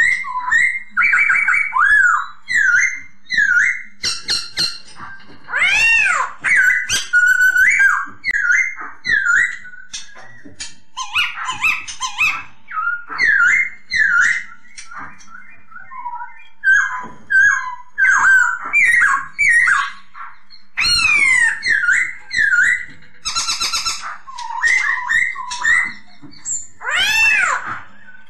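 Black-throated laughingthrush (poksay hongkong) singing: a long, varied run of loud, clear whistled notes in quick swooping and arching phrases, mixed with harsh chattering calls.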